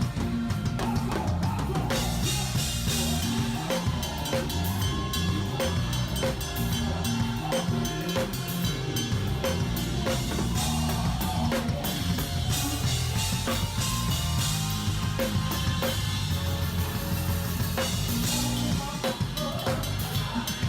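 Drum kit playing a groove, with bass drum, snare and cymbals, over a band with a stepping bass line.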